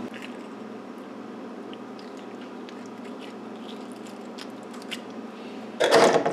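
Wet squelching and faint ticks of hands handling a freshly slit-open rainbow trout over a kitchen sink, over a steady background hiss, with a short louder sound near the end.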